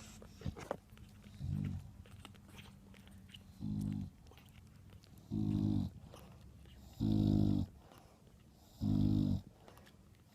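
Adult English bulldog snoring: five snores, each about half a second long and coming about every one and a half to two seconds, the first faint and the later ones louder.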